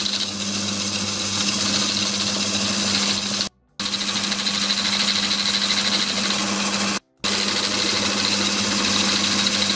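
Small micro/watchmaker's lathe running under power, its electric motor and belt drive spinning the headstock spindle and drill chuck with a steady hum and whirr. The sound cuts out abruptly twice for a split second.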